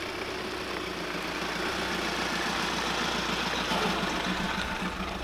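Lowered Volkswagen T5 van driving slowly past close by: a steady engine note with tyre noise on coarse tarmac. It grows louder as the van comes nearest, about four seconds in, then eases slightly.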